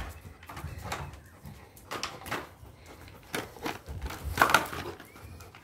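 Irregular scuffs, taps and crunches from a black Labrador playing with a barefoot man on a concrete floor. The loudest cluster comes about four and a half seconds in.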